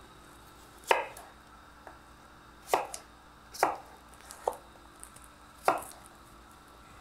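Chef's knives chopping a red apple and carrot pieces on a wooden cutting board: a handful of separate knife strikes against the board, irregularly spaced about a second apart.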